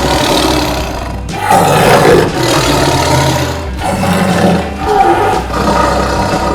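Tiger roaring: about four loud, rasping roars one after another, each a second or two long.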